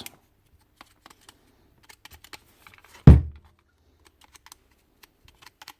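Light clicks and ticks of small parts being handled, with one sharp, loud knock about three seconds in.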